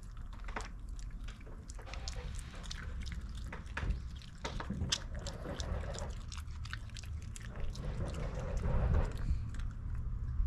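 A Shiba Inu chewing a Honekko dog chew: irregular wet clicks and crunches of its mouth, over a steady low rumble.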